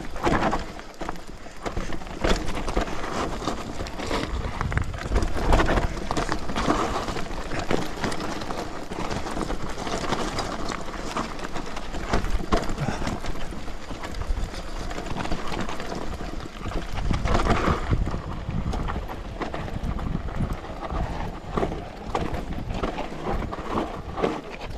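Electric mountain bike rolling fast down a rocky trail: tyres crunching over loose stones and the bike clattering and rattling over the bumps, irregular knocks without pause, under a steady low rumble.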